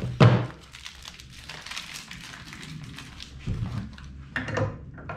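Parts and packaging being handled while unboxing a belt grinder: a knock at the start, then crinkling of wrapping for a few seconds, then a few more light knocks of parts near the end.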